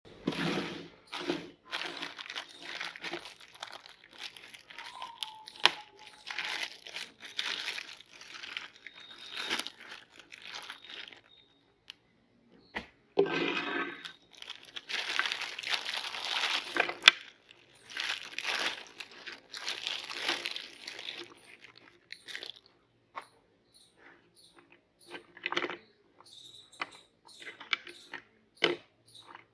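Round crisp cookies being crushed in a meat grinder: irregular bursts of crunching and crackling. They thin out to scattered small crackles over the last several seconds.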